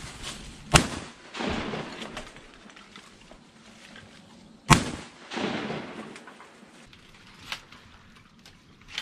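Two shotgun shots about four seconds apart, each followed about half a second later by a longer, fainter wash of noise. Two much fainter sharp cracks come near the end.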